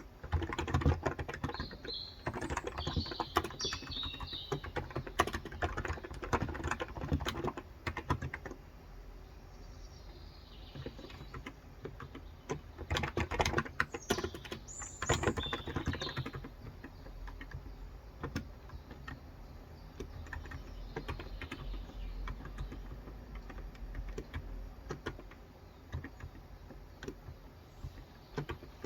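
Typing on a Cox Endeavor electrostatic capacitive (contactless) tenkeyless keyboard with 35 g switches. Dense runs of keystrokes fill the first eight seconds and return from about thirteen to sixteen seconds, with lighter, sparser typing in between and afterwards. Birds chirp in the background about two to four seconds in and again around fifteen seconds.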